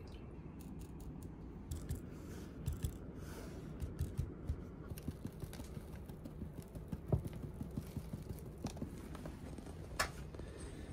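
Soft scattered taps, clicks and rustles of sowing seeds and sprinkling seed-starting mix onto a plastic cell tray, over a low steady background hum.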